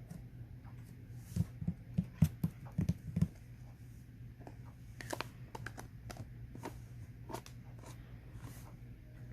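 Slime being squeezed and worked by hand: a quick run of about eight short pops a second or so in, then lighter, scattered clicks, over a steady low hum.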